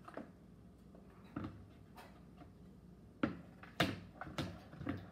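A spoon stirring slime in a plastic bowl, knocking against the bowl several times, the knocks louder and closer together in the second half.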